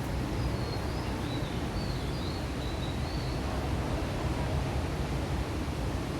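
Outdoor ambience: a steady low rumbling noise, with small birds chirping faintly in short high twittering phrases several times in the first half.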